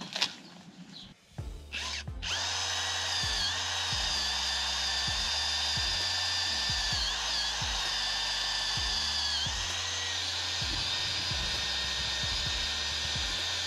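Cordless drill spinning a wire cup brush against the rusty hub face of a steel brake drum, scouring off rust. A few handling knocks come first, then from about two seconds in a steady whine and scrubbing noise that dips briefly in pitch several times as the brush is pressed in.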